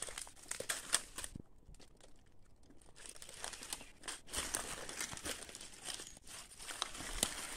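Dry leaves and twigs rustling and crackling under handling and movement through forest undergrowth, with a short quieter pause about a second and a half in.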